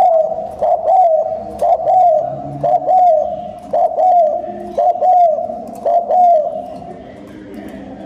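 Spotted dove cooing: a quick run of short, arched coos, about one a second, that stops about six and a half seconds in.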